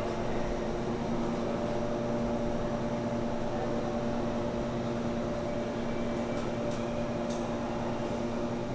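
B&W 2000 eight-cylinder double-acting two-stroke opposed-piston diesel engine running at a steady speed: an even mechanical drone with several held tones, unchanging throughout.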